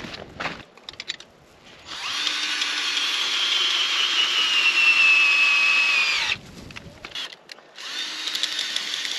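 Cordless drill running in two long runs, its whine sinking slowly in pitch under load as it screws an ice anchor into the ice at the shelter's corner. A few short crunching steps in the snow come before it.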